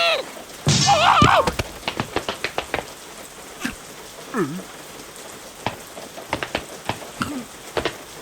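Water drops falling in sparse, irregular plinks, as in a cartoon rain or flood scene. A short squeaky cartoon vocal comes about a second in, and a brief sliding tone about four and a half seconds in.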